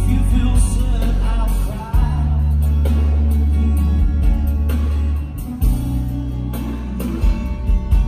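Live band music through a PA: a man singing over strummed acoustic guitar and a deep bass line of long held notes.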